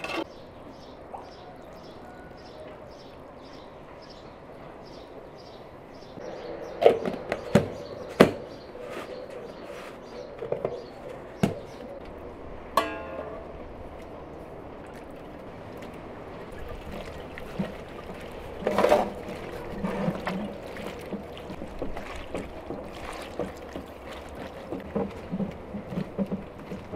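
Aluminium pot and metal dish clanking a few times, then soft wet squelching as chopped tomatoes are squeezed and mashed by hand in the pot.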